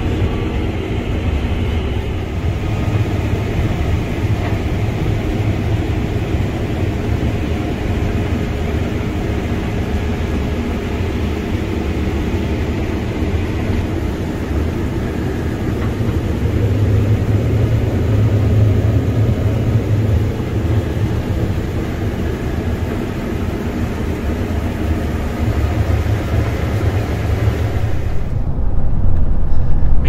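Case IH 7240 combine running steadily while harvesting corn, heard from inside the cab: a continuous low machine drone with steady tones over it. About two seconds before the end it gives way to a duller vehicle sound.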